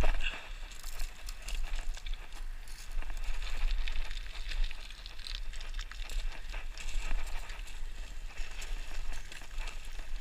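A hiker scrambling up a steep slope of loose gravel and rock: irregular crunches, scrapes and small clicks of feet and hands on stone.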